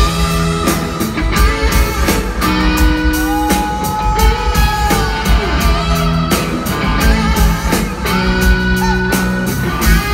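A live rock band playing an instrumental intro: electric guitars holding sustained notes over bass and a steady drum-kit beat.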